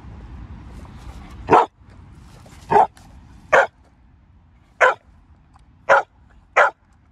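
Pit bull barking in short, sharp barks, six of them, starting about a second and a half in and roughly a second apart. They are excited play barks, aimed up at a ring toy held overhead.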